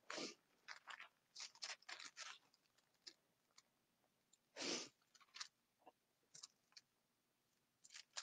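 Faint rustling of thin Bible pages being leafed through, a scatter of short papery crackles with the loudest about halfway through.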